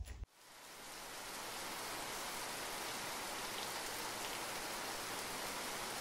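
Steady rain falling, an even hiss that swells in over the first second or so and then holds.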